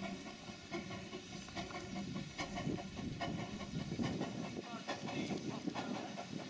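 Small narrow-gauge steam locomotive moving slowly, with steam hissing and irregular clicks and clanks from its wheels over the rail joints and points.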